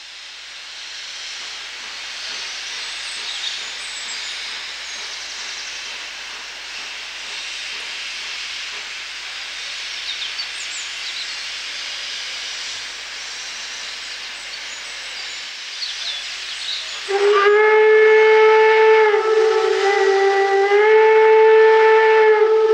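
Steam locomotive letting off steam in a loud, steady hiss. About seventeen seconds in, its steam whistle starts a long, loud blast that dips a little in pitch and then rises again.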